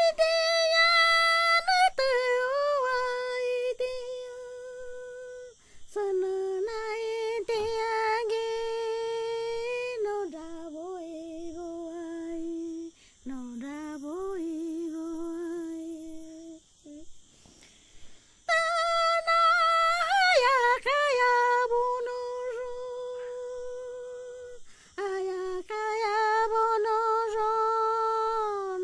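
A woman's voice singing unaccompanied, in slow phrases of long held, wavering notes that step down in pitch, with short pauses for breath between phrases.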